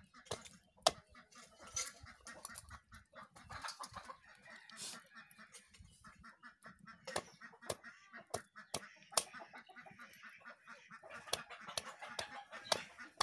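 Chickens clucking close by, with many sharp knocks of a blade striking a wooden chopping block, the knocks the loudest sounds.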